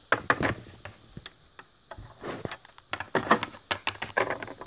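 Irregular clicks and knocks of small plastic toy figures being handled and set down on a plastic playset and a wooden table top, in a few short clusters.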